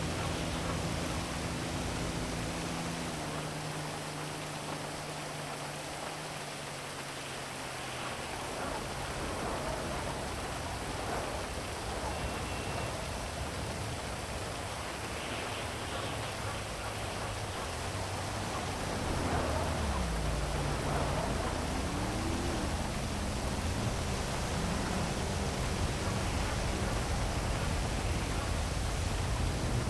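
Heavy rain falling in a steady hiss over a city, with a low hum of traffic underneath. About two-thirds of the way through, the low rumble grows louder and a low tone dips and rises again, like a vehicle passing.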